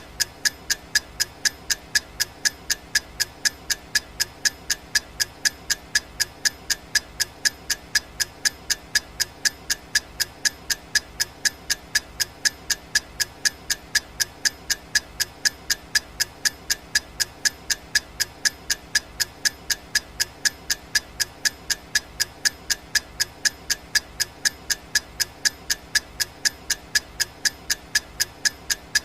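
Clock ticking sound effect: sharp, even ticks at about two a second, steady throughout.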